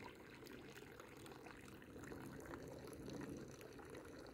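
Faint, steady trickle of water, close to silence.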